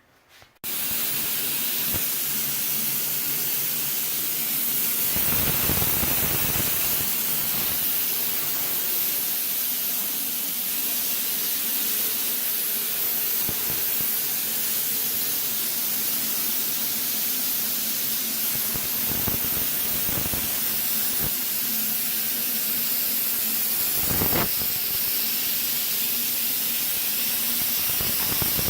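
Dry-fog sterilization machine spraying a continuous steady hiss of chemical fog, switching on abruptly just under a second in, with a few dull knocks and one sharp click along the way.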